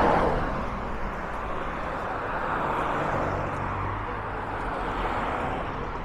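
Road traffic: a car passes close near the beginning, then steady traffic noise goes on.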